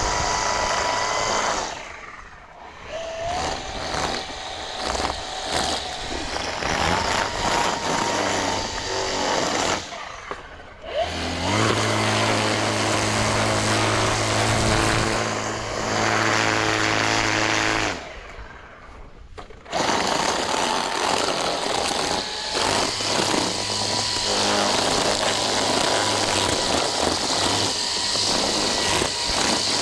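String trimmer running, its line cutting grass along a concrete patio edge and a house wall. The sound drops away briefly three times, about two, ten and eighteen seconds in.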